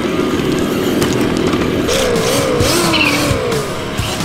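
Simulated engine sound from an RC crawler's sound module: a low rumble, then about two seconds in the pitch revs up and down several times in quick rises and falls.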